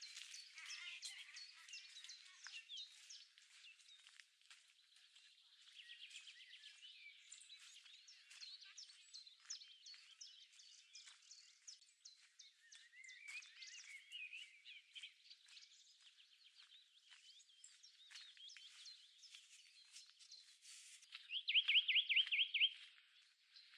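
Several small songbirds singing and chirping together in woodland. About 21 seconds in, one bird close by sings a loud, fast trill of about nine repeated notes lasting a second and a half.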